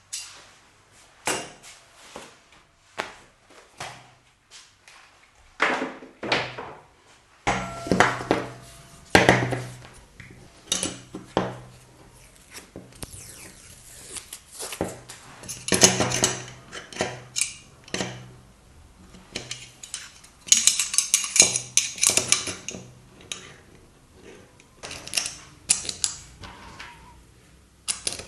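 Small steel parts of a Leatherman Wave+ multi-tool clinking and clicking as they are handled on a bench: a long series of sharp metallic taps, with a busier spell of rattling a little past the middle.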